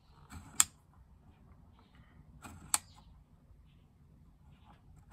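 Rotary dial of a resistance decade box being turned by hand and clicking into its detents: two sharp clicks about two seconds apart, each led in by a brief soft rub of the knob.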